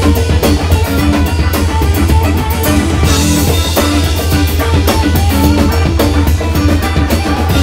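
A live band playing amplified music: a drum kit keeping a steady beat under electric guitars, with a heavy, continuous low end.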